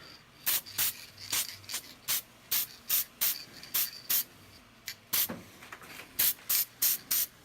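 Aerosol can of black spray paint sprayed in many short bursts, about two or three a second with brief pauses, each a quick hiss, laying on a light coat.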